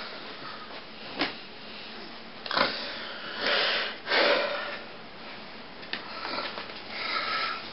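Several short rustling, breathy noises with a faint click about a second in, the sound of someone handling cloth puppets and breathing nearby.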